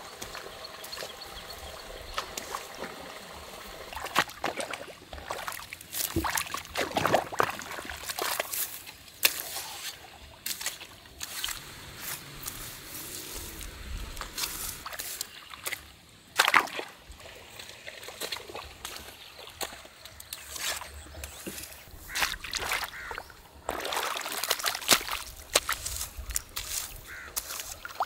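Water trickling and sloshing in a muddy field channel, broken by irregular splashes as a hoe cuts into wet mud.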